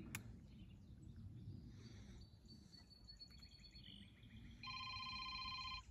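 Faint outdoor background, then about two thirds of the way in a phone starts ringing with an electronic ringtone of several steady, rapidly pulsing tones.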